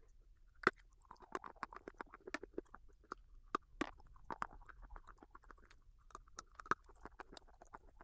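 A person chewing crunchy red dusty stone close to the microphone: a steady run of small crisp crunches, with louder cracks about a second in, around the middle and near the end.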